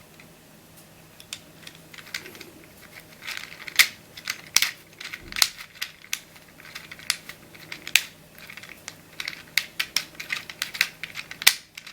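Plastic tiles of a Leesho tile-sliding puzzle clicking as rows of tiles are slid around the puzzle by hand: a run of irregular sharp clicks starting about a second in.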